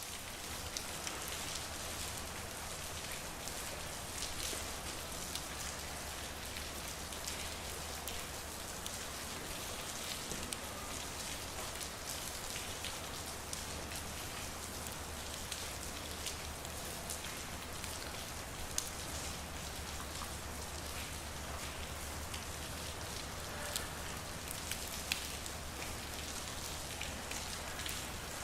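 Steady rain falling in a street, a constant hiss with many small drops ticking close by, over a low steady hum.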